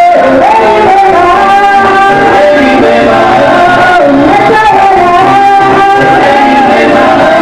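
Church worship song: a sung melody with instrumental accompaniment, loud and steady.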